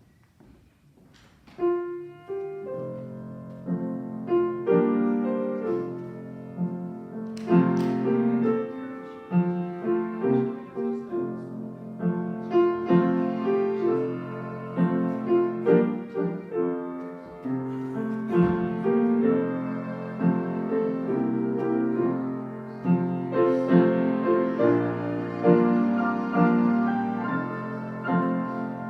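Piano playing slow, sustained chords and melody, starting about a second and a half in after a few faint knocks.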